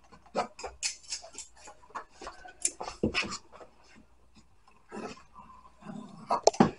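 Scissors cutting through white upholstery vinyl: a run of quick, crisp snips and clicks of the blades, pausing for a moment and picking up again near the end.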